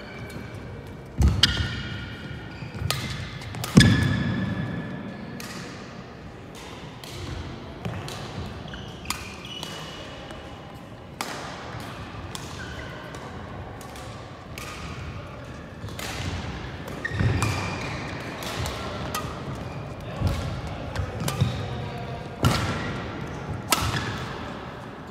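Badminton rally: rackets hitting the shuttlecock and players' feet thudding and squeaking on the court, at irregular intervals, echoing in a large hall. The loudest are a couple of heavy thuds early on.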